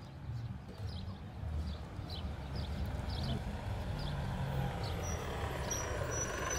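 Street traffic background: a low, uneven rumble with a run of light, irregular clicks over it, and a thin high whine that comes in near the end.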